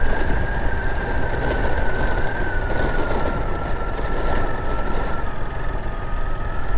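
Motorcycle riding along a dirt road: engine running under steady road and wind noise, with a thin high whine that drifts slightly lower in pitch.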